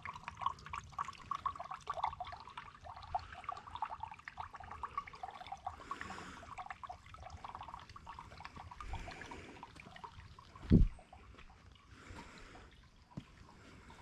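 Small creek water trickling and bubbling over rocks, a busy patter of little drips and gurgles. About eleven seconds in there is a single short, loud low thump.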